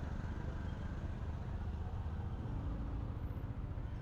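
A motorbike engine running steadily while riding, mixed with the road and traffic noise of a city street.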